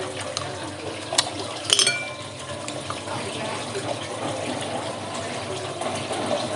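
Wet slurping and chewing as clam meat in sweet-and-sour sauce is sucked from the shell, with two sharp clinks of shell about a second and a half in, the second ringing briefly.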